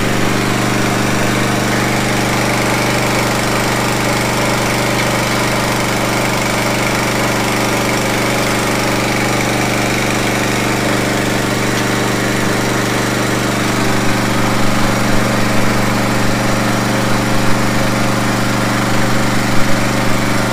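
Motor-driven water pump running steadily as it flushes sand out of a clogged hand-pump well pipe, with water gushing from the pipe. Irregular louder knocks come in over the last several seconds.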